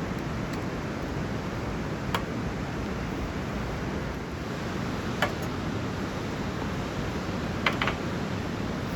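A steady rushing outdoor noise, like wind or flowing water, with a few short sharp clicks or pops: one about two seconds in, one about five seconds in and a quick pair near eight seconds.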